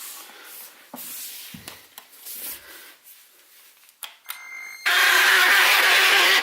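Clicks and knocks of a Dibea C17 cordless vacuum cleaner being handled, then near the end its motor switches on and runs loud and steady with the rattling noise that is its fault.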